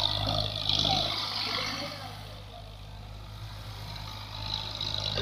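Tractor diesel engine running steadily as the tractor drives in circles over loose sand, with a hissing rush that swells at the start and again near the end.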